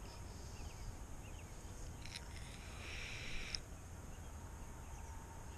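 Faint outdoor ambience: a steady low rumble with a few faint, short high chirps, and a brief rustle about three seconds in.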